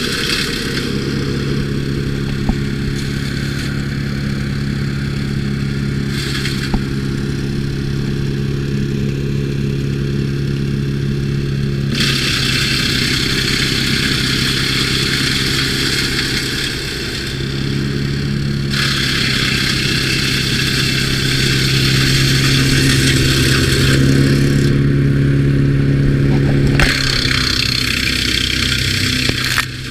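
Timber Wolf TW13/75G wood chipper running steadily, with spells of rushing noise as wood is fed through and chipped, the longest from about twelve to twenty-four seconds in. During the spells the engine note sags under the load.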